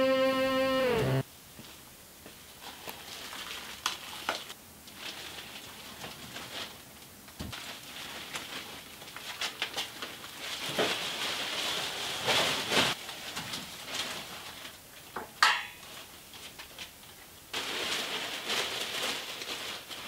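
Clear plastic masking sheeting being handled and hung: uneven crinkling and rustling with scattered clicks and knocks, and one short rising squeal about fifteen seconds in. Electric guitar music cuts off about a second in.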